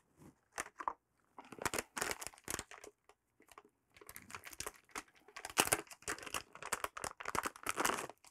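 Plastic packaging crinkling and rustling in irregular bursts as a bag of red alligator-clip test leads is handled and opened.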